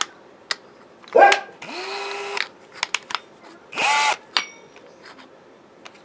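A dog barks twice, once about a second in and again about four seconds in. Between the barks a Ryobi cordless drill is run briefly for under a second. Light clicks come from handling the drill.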